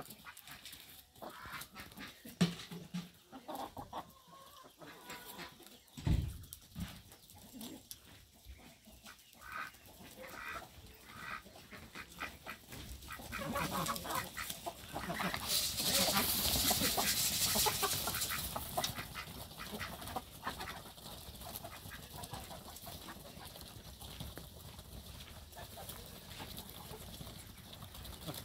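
A flock of chickens feeding on scattered wheat, clucking as they peck, with many short taps from their beaks against the ground. A louder rushing noise swells for a few seconds about halfway through.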